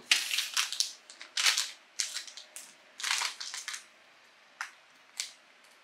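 Plastic gummy-candy pouch (Kanro Asoboni Gummy Animal World) crinkling and tearing open in a run of sharp rustles, thinning to a couple of single crackles near the end.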